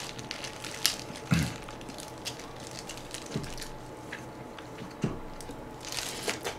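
A person chewing braised beef short ribs, with soft wet clicks and smacks scattered through.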